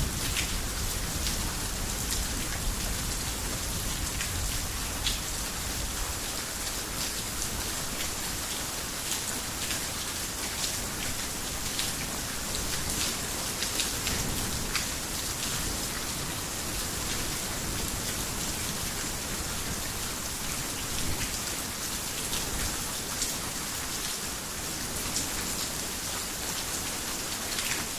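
Heavy rain falling steadily on a roof: an even hiss with many sharp individual drop hits scattered through it.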